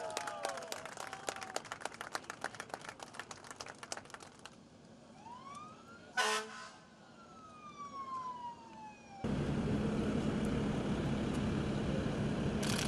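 Emergency vehicle siren wailing, rising and falling, with a short, loud tone about six seconds in. Before it comes rapid clicking and rattling; from about nine seconds on there is a steady low hum.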